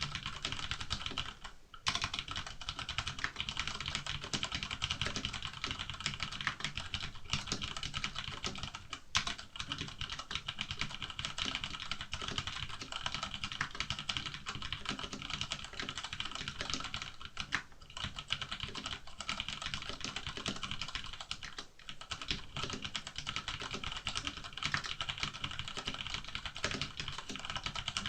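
Fast continuous typing on an Ozone Strike Battle mechanical keyboard with Cherry MX Brown switches: a dense run of key clacks, pausing briefly about a second and a half in and again near the end.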